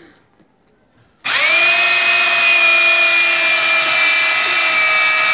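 Handheld electric drill switched on about a second in, then running steadily with a high whine as its bit bores down into a lemon-tree branch.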